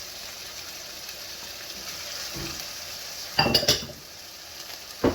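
Minced beef and garlic sizzling steadily in a frying pan, with a spoon clinking and scraping against the pan in a quick cluster of strikes a little past halfway and once more at the end.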